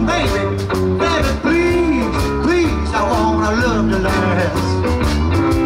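Live rock band playing: a man sings the melody over electric guitars and a steady drum beat.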